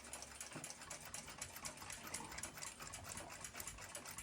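Seikosha ship's clock movement running, with rapid, even ticking.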